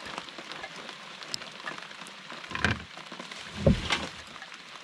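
Steady rain falling on the lake and the canoe, with a few knocks and thumps as gear is lifted out of the canoe, the loudest a little past halfway.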